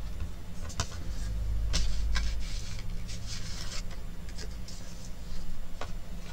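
Card stock being handled and slid on a sliding-blade paper trimmer, with the blade scraping through the card to shave off a thin strip; light clicks, paper rustling and a low thud from handling on the desk.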